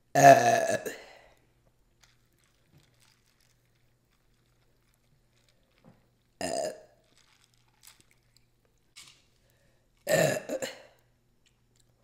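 A woman burping three times: a long, loud burp right at the start, a short one about six and a half seconds in, and another about ten seconds in.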